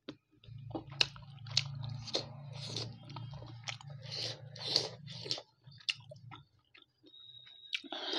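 Close-miked chewing of a steamed chicken momo: a run of wet mouth smacks and clicks. A low steady hum sits underneath for the first five seconds or so.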